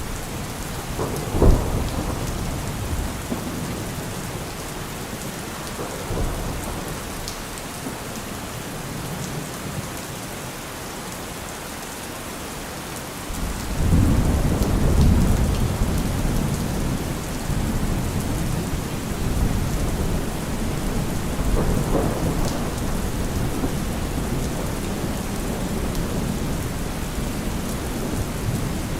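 Steady heavy rain falling, with a sharp crack of thunder about a second in and a low rolling rumble of thunder building about halfway through and lingering to the end.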